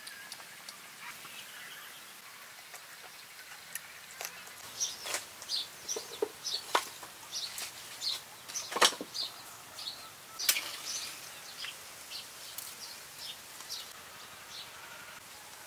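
Birds chirping in short high-pitched calls, many in a row through the middle of the stretch, with a couple of sharp clicks.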